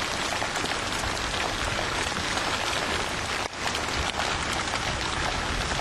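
Heavy rain falling steadily, an even hiss with no break except a brief dip about three and a half seconds in.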